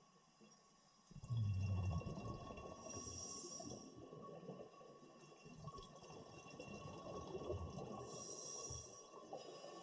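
Scuba diver breathing through a regulator underwater: a low bubbling rumble of exhaled bubbles starting about a second in, with two brief hissing inhalations about five seconds apart.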